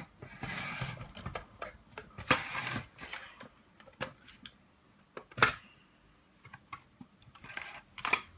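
Irregular plastic clicks and short scraping bursts as the FPV goggle housing is prised open by hand, with a sharp click about five seconds in.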